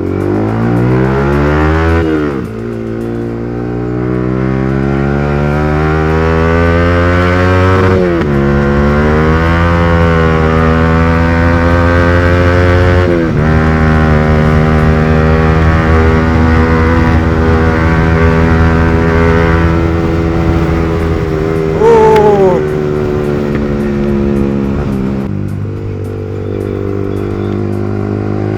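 Modified Yamaha R15 V3's single-cylinder engine through a loud aftermarket exhaust, accelerating through the gears: the pitch climbs and drops at each upshift about 2, 8 and 13 seconds in, then holds steady at cruising speed. Near 22 seconds a brief, louder wavering tone cuts in, and about 25 seconds in the throttle eases and the engine note drops.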